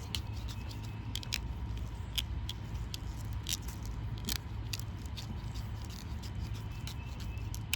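Irregular small clicks, scrapes and rattles of electrical wires being handled and pushed through plastic split wire loom, over a steady low rumble.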